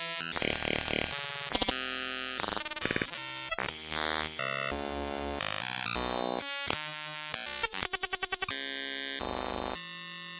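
Synthesized digital glitch noise: harsh electronic buzzes, tones and bursts of static that cut abruptly from one to the next every fraction of a second, with a stretch of rapid stuttering pulses partway through.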